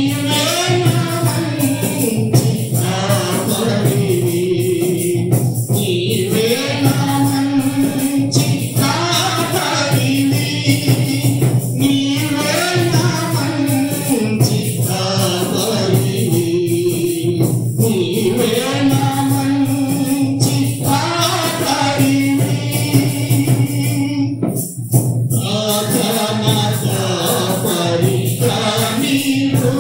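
A man singing a Telugu Christian devotional song, with other voices joining in and a tambourine keeping a steady beat.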